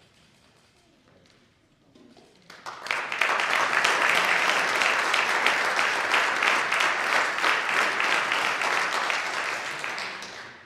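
Audience applauding: a quiet stretch, then clapping breaks out about three seconds in, holds steady and tapers off near the end.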